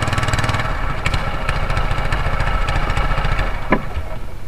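Small wooden boat's engine running steadily as the boat travels along the river, with its higher-pitched noise thinning about a second in and a light knock or two.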